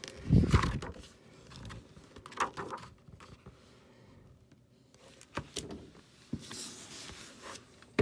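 A hardcover picture book being handled: its last pages turning and the book closing, with a dull thump about half a second in and a sharp knock at the end.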